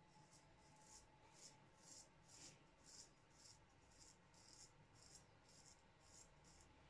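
Straight razor scraping through lathered beard stubble on the cheek in short, faint strokes, about two a second.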